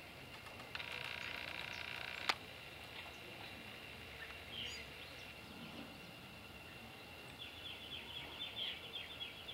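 Faint outdoor ambience. Early on a buzzing tone sounds for about a second and a half and ends in one sharp click. Near the end comes a quick run of light, high ticks, a white-barred piculet pecking at a thin ash twig.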